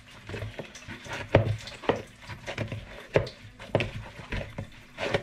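Wet hands squeezing and pressing sticky bread dough in a plastic mixing bowl: irregular squelches and soft knocks, one to three a second.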